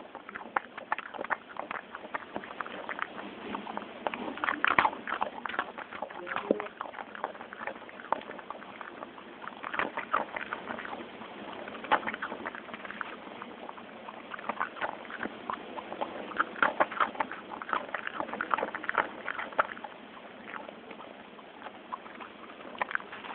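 A dog eating food pieces off a carpet right next to the microphone: chewing and snapping up bits in irregular bouts of sharp, crunchy clicks.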